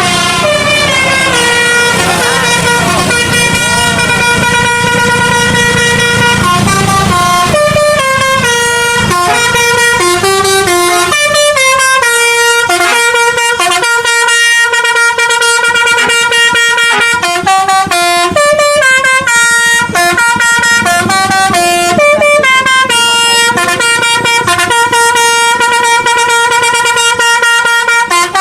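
Bus telolet basuri horn playing a tune: several pitched air horns sound a long run of held notes that step from pitch to pitch, with a low rumble underneath for about the first eleven seconds.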